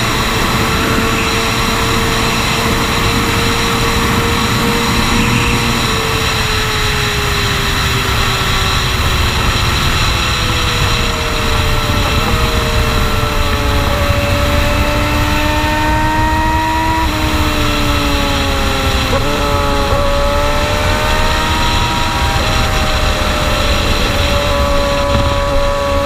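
Sport motorcycle engine running at highway speed under heavy wind noise. Its note sinks slowly as the throttle eases, then climbs again, with a sudden drop in pitch about seventeen seconds in and another brief dip soon after, like gear changes.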